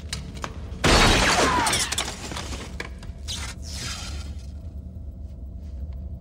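Video game equipment smashed: a sudden crash of breaking glass about a second in, pieces scattering for about a second, then a second, softer rush of falling fragments around three to four seconds in.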